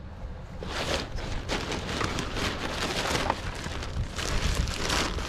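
Black plastic trash bag rustling and crinkling as it is handled and opened, starting about a second in.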